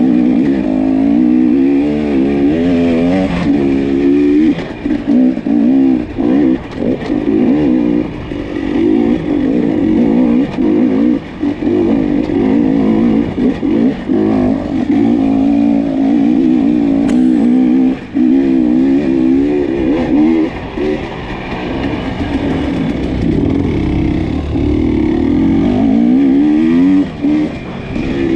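Off-road dirt bike engine revving up and down as the rider works the throttle over the trail, its pitch rising and falling over and over, with short let-offs several times.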